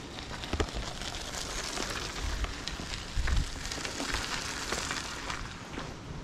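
Footsteps crunching on a gravel path, a crackling hiss of small clicks with a soft thud at each step, about two steps a second.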